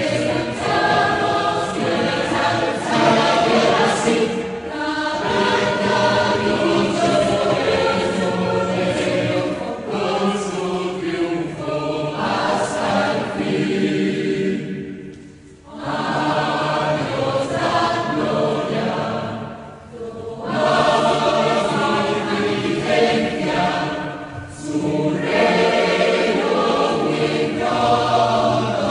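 A choir singing, with three short breaths between phrases.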